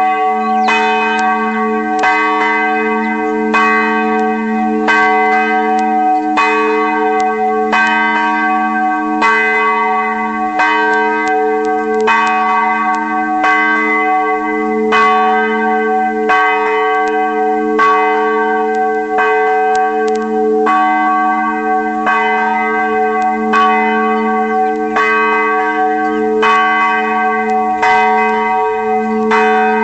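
Church bell struck over and over at a steady pace, a little more than once a second, each strike ringing on so that the tones blend into a continuous hum beneath the strikes.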